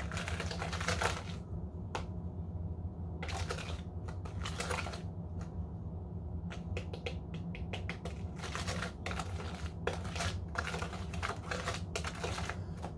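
Wire whisk beating butter, sugar and salt into a creamy paste in a plastic tub, the wires clicking rapidly against the sides in spells with short pauses. A steady low hum runs underneath.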